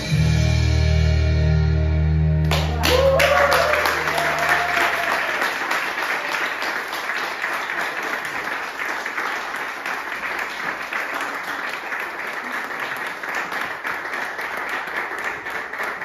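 A song's backing track ends on a held final chord, which stops about two and a half seconds in; a small group then bursts into applause, with a short cheer as it begins, and keeps clapping steadily.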